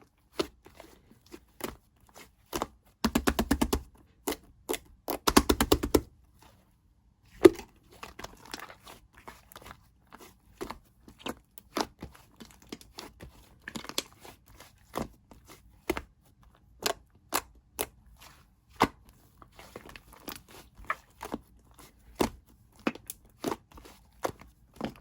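Slime being kneaded and mixed by hand, making irregular sticky clicks and pops. Two stretches of rapid crackling come about three and five seconds in, and there is a sharp pop a little later.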